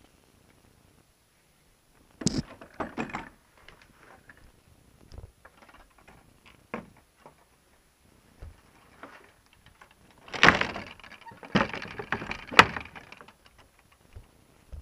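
Wooden shed door being handled: knocks and rattles, a short cluster early and a longer, louder cluster about ten seconds in, ending in one sharp click.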